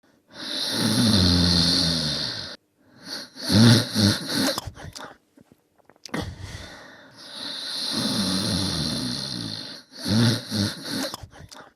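A person snoring: two long snores about six seconds apart, each followed by a few shorter snorting breaths.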